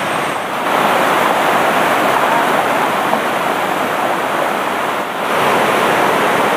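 Rushing water of a shallow, rocky river running over rapids: a steady, loud rush.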